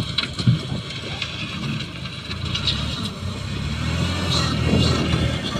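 Mini loader's engine running under load as its front bucket pushes a heap of soil forward, working harder and louder about four to five seconds in. A couple of sharp knocks come about half a second in.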